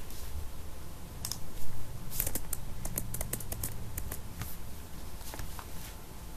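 Computer keyboard typing: scattered keystrokes, then a quick run of them in the middle and a few more near the end. A short low thump, the loudest sound, comes about one and a half seconds in.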